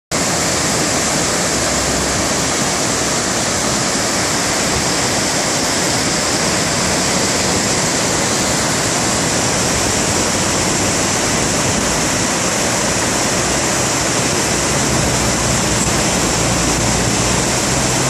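Steady loud rush of a river in flood after typhoon rain, its muddy water pouring down a series of stepped concrete weirs.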